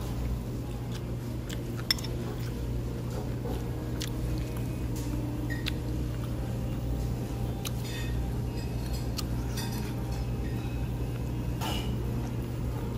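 Utensils lightly clinking against a ceramic soup bowl a few times while noodles are lifted from the broth, with one sharper click about two seconds in, over a steady low hum of room noise.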